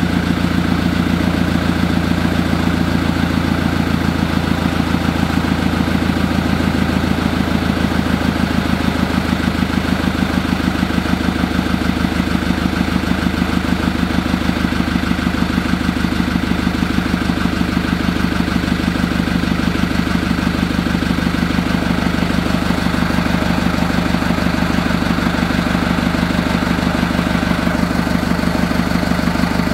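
Fiat 70-66 DT tractor's four-cylinder diesel engine idling steadily with an even beat, running smoothly after a cold start.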